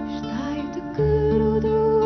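A woman singing a slow Yiddish lullaby over a low, held instrumental accompaniment. About a second in she begins one long sung note.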